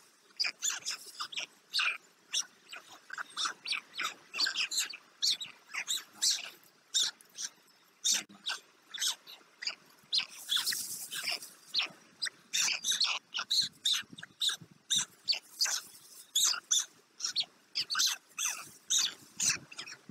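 White stork chicks begging for food: a rapid string of short, high-pitched cries, several a second. A brief rustle about ten seconds in.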